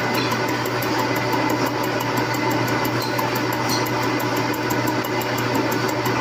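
Milling machine running under cut, its cutter machining a groove into a metal shaft: a steady, even machine hum.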